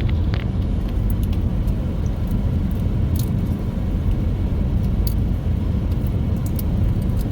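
Steady low rumble of a moving car heard from inside the cabin, with scattered small clicks and rattles.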